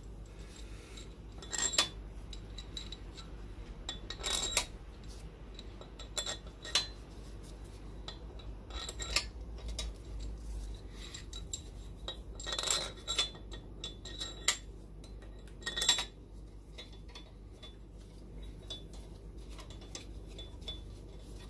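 New steel head bolts clinking against the aluminium cylinder head of a Volkswagen Polo 1.2 engine as they are set into their holes one by one by hand. There are a dozen or so short, sharp metallic clinks at irregular intervals, each with a brief ring.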